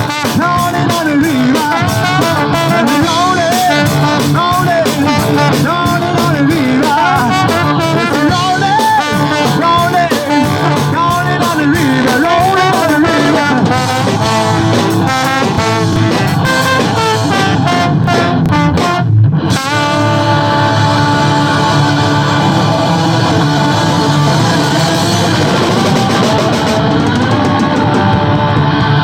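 Live rock band playing an instrumental passage: a lead guitar bends and wavers its notes over bass and steady drum beats. About two-thirds of the way in the playing breaks off for a moment, then goes on with long held chords.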